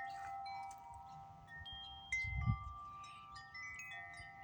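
Metal wind chimes ringing in strong wind: several overlapping, lingering tones, freshly struck at irregular moments, loudest about two seconds in.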